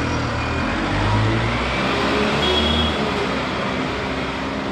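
Alexander Dennis Enviro200 single-decker bus driving away through a junction, its engine running under steady street-traffic noise.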